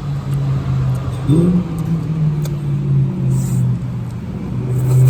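A loud, low, steady hum with a short rise in pitch about a second in, over faint clicks and smacking from taco-eating.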